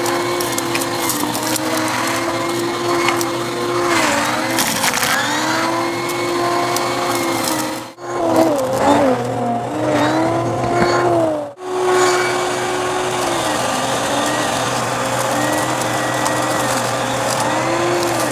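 Bissell CleanView vacuum cleaner running, its motor pitch sagging and recovering over and over as the nozzle is pushed and pulled, with a crackle of crunchy debris being sucked up. The sound drops out briefly twice, a few seconds apart.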